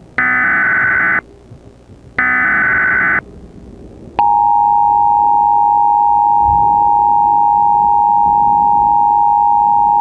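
Emergency Alert System tones: the last two of three one-second SAME digital header bursts, a shrill warbling data screech with about a second of quiet between them, then about four seconds in the steady two-tone EAS attention signal starts and holds. The attention signal marks the start of an emergency alert, here a severe thunderstorm warning.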